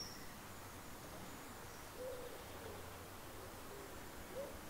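A bird giving short, low calls, a couple of notes about two seconds in and a run of them near the end, over a steady faint background hiss. A brief high chirp from another bird comes right at the start.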